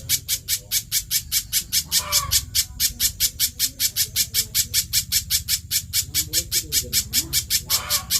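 Spiderhunter (kolibri pijantung) calling without pause: a rapid, even run of sharp high chips, about six a second, with a brief lower call about two seconds in and another near the end.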